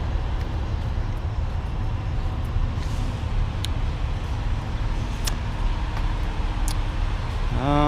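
Steady low rumble of idling semi trucks in a truck parking lot, with a few light clicks in the second half.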